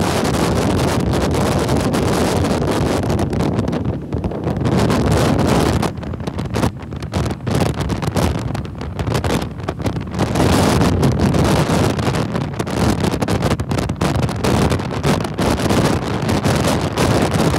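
Wind buffeting the microphone on a moving motorcycle, a loud, gusty rush with the bike's road noise underneath. It eases briefly about four seconds in and again between about six and ten seconds in.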